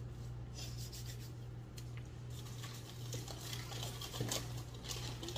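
Snack packaging rustling and crackling as it is handled, with sharper crackles gathering from about halfway through, over a steady low hum.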